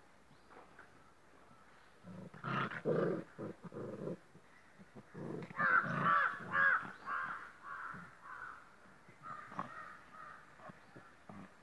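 Two yellow Labrador puppies play-fighting, giving play growls and yaps in short bursts. The sounds start about two seconds in and are loudest around the middle.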